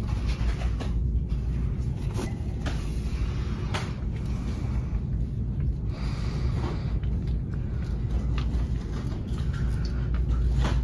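Handling noise from a handheld phone being carried: a steady low rumble with scattered light knocks and rustles.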